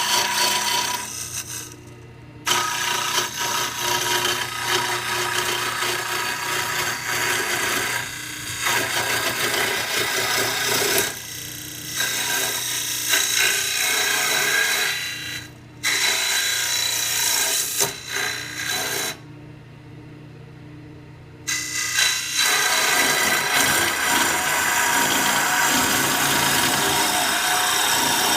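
Jet mini wood lathe spinning a cedar lure blank while a duplicator-guided cutter shaves it to shape, a rough cutting noise over the steady motor hum. The cutting comes in passes, breaking off briefly several times and for a couple of seconds about two-thirds of the way in.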